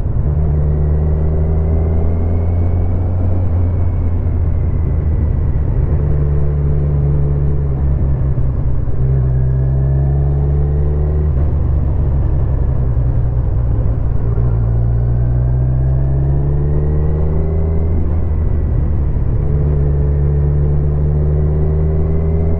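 Kawasaki Z1000 motorcycle's inline-four engine running on the move, heard from the rider's position. Its pitch rises and falls gently several times over a steady low rumble.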